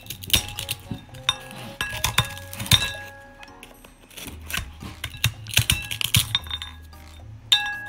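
Kitchen shears cutting and cracking a microwave-puffed Himalayan cheese dog chew, with many sharp, irregular cracks and clinks of the blades and crumbs against a ceramic bowl. Background music with steady tones plays underneath.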